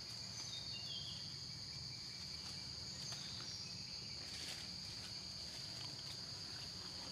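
Steady high-pitched drone of an insect chorus, with a few faint soft clicks.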